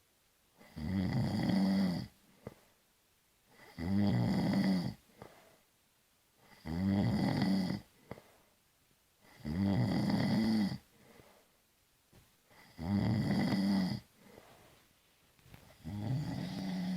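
A person snoring: six snores, about one every three seconds, each just over a second long, with quiet gaps between.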